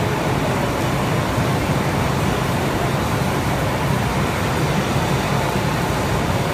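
Steady, even drone of dairy barn machinery, loud and unbroken, with no clear rhythm or distinct events.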